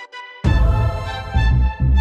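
Background music: soft sustained keyboard tones, then about half a second in a loud full passage comes in with heavy, pulsing bass.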